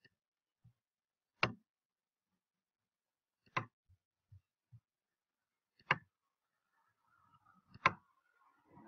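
Computer mouse clicking: four short, sharp clicks about two seconds apart, with a few soft knocks between them and a faint noise in the last couple of seconds.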